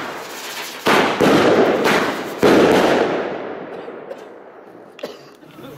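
Funke FM19-S Vortex Saluts firework salutes going off in quick succession: four loud bangs in the first two and a half seconds, each echoing and dying away slowly. A couple of faint pops come near the end.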